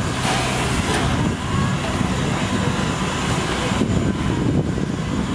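Steam locomotive standing with steam hissing from around its cylinders and running gear, over a steady low mechanical hum. The hiss is a little sharper in the first second.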